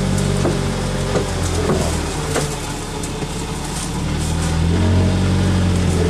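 Off-road vehicle's engine running at low revs as it crawls through dense brush, getting louder about four and a half seconds in. A few light knocks sound in the first half.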